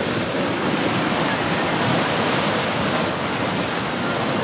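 A swollen, muddy river in flood rushing and churning against a bridge: a steady, loud rush of turbulent water.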